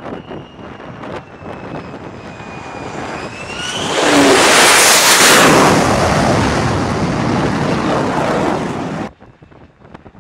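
F-35C's single Pratt & Whitney F135 turbofan on carrier landing approach: a high engine whine that rises, then a loud jet roar for about five seconds as the fighter comes in close past the deck. The roar stops abruptly about a second before the end.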